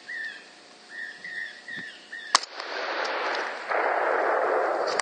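A single rifle shot about two seconds in, a sharp crack. Before it come faint, short, high whistled tones. After it a steady hiss follows, getting louder near the end.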